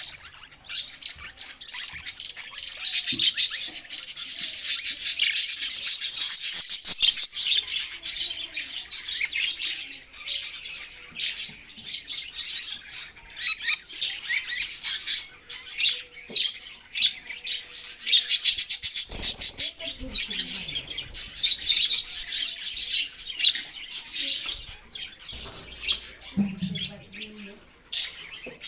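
A flock of pet budgerigars chirping and chattering non-stop, with many quick high calls overlapping. The chatter swells for several seconds early on and again just past the middle.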